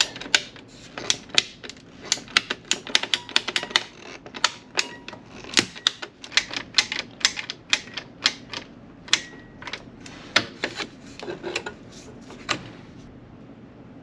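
Hand pipe cutter being worked through a black ABS drain pipe: a long run of sharp, irregular clicks, several a second, that stops about a second before the end as the cut is finished.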